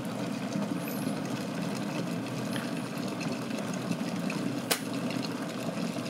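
Bosch TWK 70B03 glass electric kettle at a full boil, its water bubbling with a steady low noise that is fairly quiet for a kettle. About four and a half seconds in comes a single sharp click: the kettle switching itself off at the boil.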